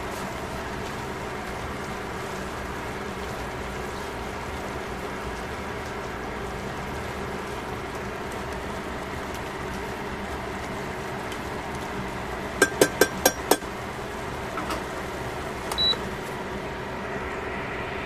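A stainless steel pot of pork and vegetables cooking with a steady hiss and low hum. A little after halfway a utensil taps five times quickly against the metal pot, and a short high beep follows about two seconds later.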